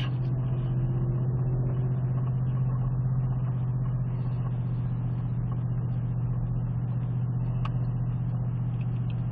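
Ford Raptor R's supercharged V8 running steadily at low revs as the truck rolls slowly over dirt, heard from inside the cab as an even low drone.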